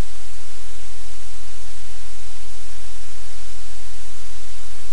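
Loud, steady hiss like static, with a low hum underneath and no change.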